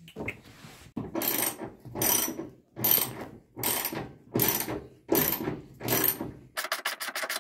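Socket ratchet wrench being worked back and forth on a stubborn seat-belt anchor bolt in a VW Kombi's floor, the pawl clicking through about seven strokes, then a fast run of clicks near the end.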